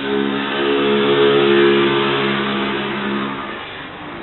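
Boeing 747-400F's four jet engines at climb power as the freighter climbs away after takeoff: a loud drone with several steady tones that swells and then fades toward the end.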